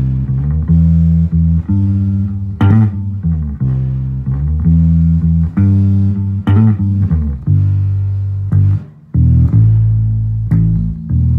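Electric bass guitar playing a slow blues bass line in G, one sustained note after another with a brief break about nine seconds in.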